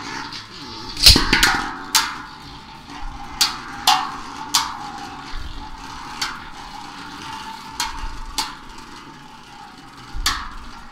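Beyblade Burst tops Doomscizor and Wyvern spinning and clashing in a plastic sled used as a stadium. A dozen or so sharp clacks come at irregular intervals, the loudest about a second in, over the faint whir of the spinning tops.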